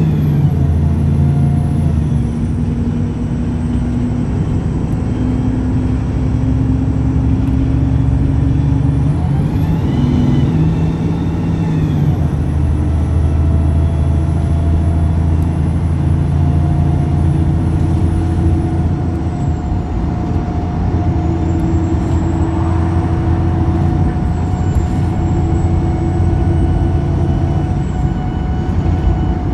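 Pulsar single-decker bus engine running under way, heard from on board, with a high whine over it. About ten seconds in, the engine note rises and falls back, and a steady whine holds through the rest.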